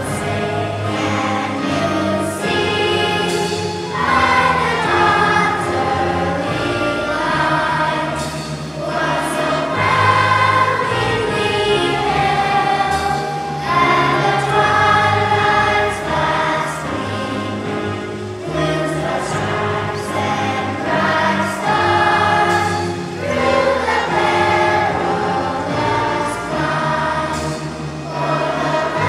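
Children's choir singing together in unison, with instrumental accompaniment holding sustained low notes underneath.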